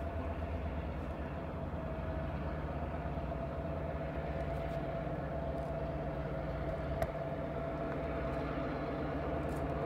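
EMD diesel locomotive running steadily in the distance as the train approaches: a low engine drone with a steady higher whine over it, growing slightly louder. A single sharp click about seven seconds in.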